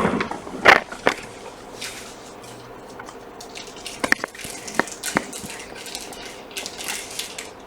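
Handling noise on a workbench: a few sharp clicks and knocks, with short stretches of scraping or rustling in the second half.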